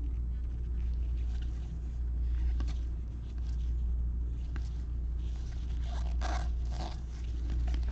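Trading cards being handled and slid against each other, soft scraping swishes and light ticks, with a couple of fuller swishes near the end. A steady low hum sits under it throughout.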